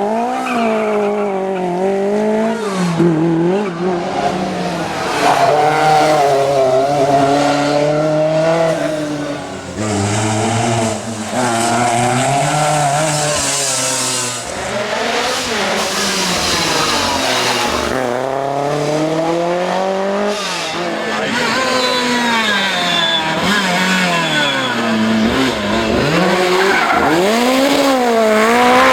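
Lancia 037 Group B rally car's supercharged four-cylinder engine driven hard. Its note climbs steeply and drops back over and over as it is taken up through the revs and lifted off between gear changes, with a hiss in the middle stretch.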